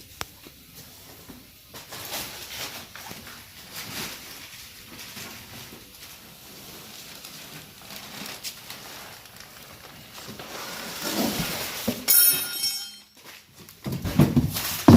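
Handling noise of parts being moved about: irregular rustling and small knocks, louder near the end, with a brief high ringing scrape about twelve seconds in.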